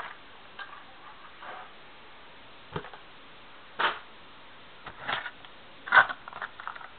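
Packing material being handled and moved aside: a few sharp clicks and knocks, the loudest about six seconds in, with faint rustling between.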